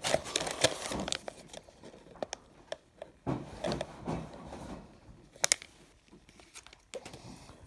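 Plastic lure packaging crinkling and rustling as a soft-plastic bait bag is pulled out and handled, with a few sharp crackles and clicks of the stiff plastic.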